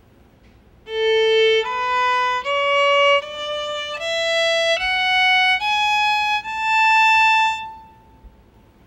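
A violin, bowed, plays an ascending A major scale over one octave: eight separate notes, each about three-quarters of a second long. The top A is held longer and then fades.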